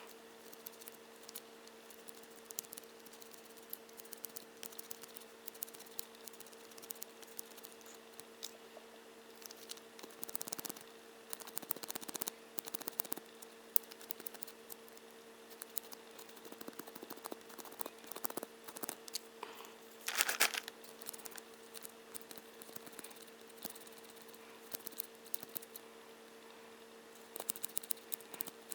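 Faint clicks, taps and scraping of small tools and parts being handled while a model locomotive's motor is cleaned, over a steady faint hum. A louder, short scratchy rasp comes about twenty seconds in.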